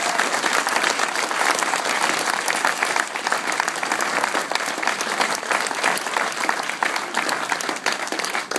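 Audience applauding: dense, steady clapping from many hands, easing off a little near the end.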